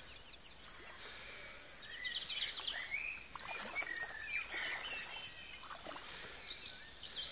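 Small birds singing outdoors, a run of short chirps, whistled glides and quick trills over faint background noise.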